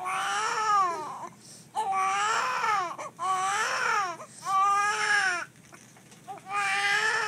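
Newborn baby crying: a run of about five high-pitched cries, each around a second long, with a short breath between them.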